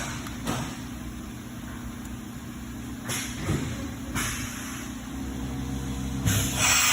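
YCM NXV560A CNC vertical mill running with a steady hum, broken by several short hissing, clattering bursts, the loudest near the end.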